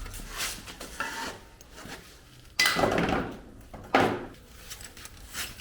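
Hand tools and brake parts being handled during a rear handbrake-shoe job: a few light knocks, then two louder scraping rubs about two and a half and four seconds in.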